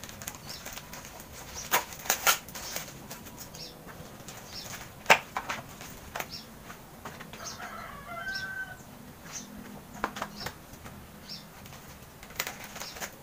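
A small blade cutting and tearing the plastic wrapping and tape of a parcel: rustling with sharp snaps and clicks, the loudest about five seconds in.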